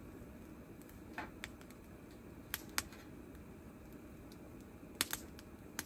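Quiet background with a faint steady low hum, broken by a few light, sharp clicks and taps: two pairs in the first three seconds and a close pair about five seconds in.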